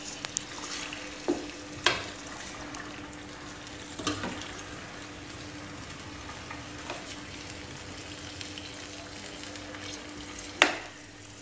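Yogurt-marinated chicken pieces sizzling steadily in oil in a stainless steel pan while a metal spoon stirs and turns them, knocking and scraping against the pan a few times, loudest near the end.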